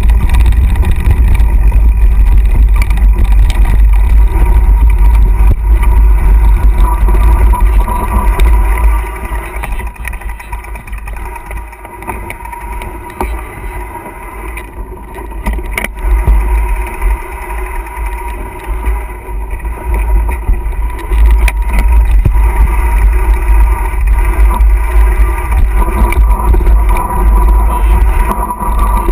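Wind buffeting a mountain-bike action camera's microphone as the bike rolls down a rough dirt singletrack, a loud low rumble with rattle from the trail. It eases off for several seconds about a third of the way through, when the riders slow, then picks up again.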